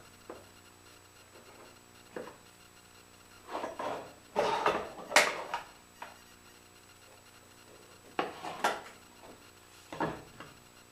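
A metal combination square and a pencil handled against a wooden board on a table-saw top: light rubbing and scratching, and sharp clicks and clatters of metal on wood in short groups, the loudest about four to five seconds in and more around eight and ten seconds.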